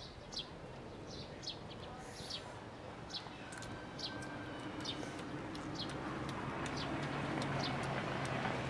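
Small birds chirping: short, high, falling chirps repeated every half second or so. A low engine hum grows louder in the second half.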